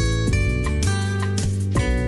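Background music: an instrumental track with strummed or plucked guitar and a steady beat.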